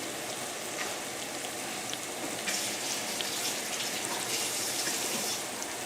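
Shrimp sizzling in a hot frying pan on a bed of onions and garlic: a steady hiss with faint crackles, a little louder through the middle.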